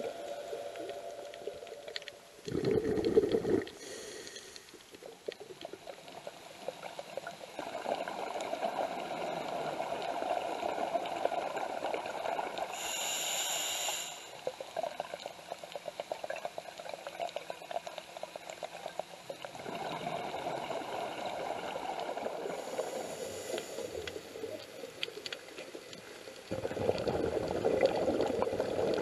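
Scuba diver breathing underwater through a regulator: a short hiss on each inhalation, then a long rush of bubbling on each exhalation, about four slow breaths in all.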